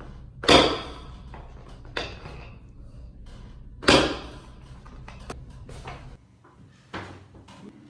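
Chiropractic adjustments: two loud, sharp thrust sounds about three and a half seconds apart, with fainter knocks between and after them.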